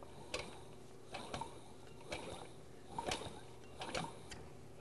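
Freshly reassembled rotary vane vacuum pump being turned over slowly by hand, giving faint knocks and puffs of air about once a second. The knocks come in an uneven beat, some in pairs, which is likened to an old John Deere tractor.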